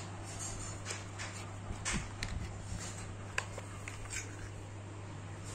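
Small cardboard packaging being handled and opened by hand: scattered light scrapes, rustles and clicks, over a steady low hum.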